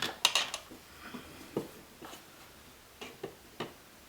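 Small hard clicks and taps of metal and plastic from handling a GFCI outlet and hand tools at the wall box: a quick flurry of clicks at the start, then single taps every half second to a second.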